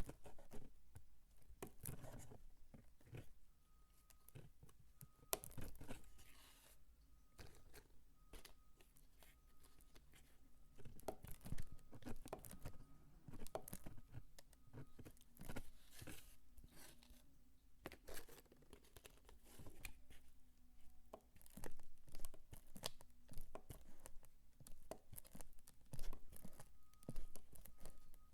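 Dry soap peelings being crumbled and crunched by hand, an irregular run of crisp crackles and crunches that comes in louder flurries.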